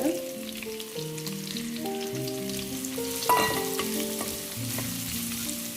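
Sliced onion sizzling in hot oil in a kadai, with a sharp knock about three seconds in, over soft background music of held notes.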